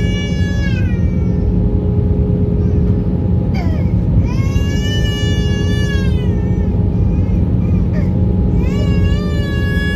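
Steady airliner cabin noise: a low rumble of engines and airflow with a steady hum. Three times, a high wailing cry rises and falls over it, each lasting about a second and a half.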